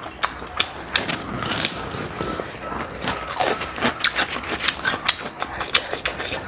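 Close-up eating sounds: chewing food with the mouth shut, a dense, irregular run of wet clicks and smacks.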